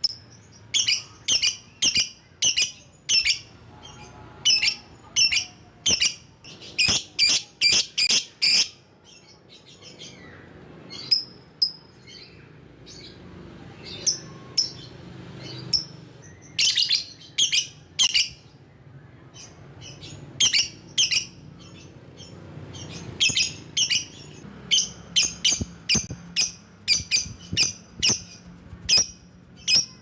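Lovebird calling in quick runs of short, shrill chirps, the runs thinning out for a few seconds about a third of the way through before picking up again.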